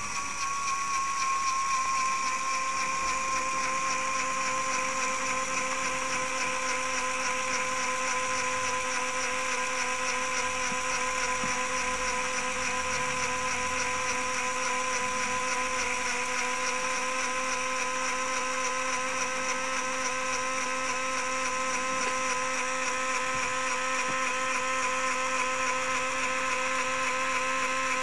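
Small LEGO electric motor running steadily, driving a Technic chain and sprockets that raise the lift's forks: a steady whine of motor and plastic gearing, settling slightly lower in pitch in the first two seconds.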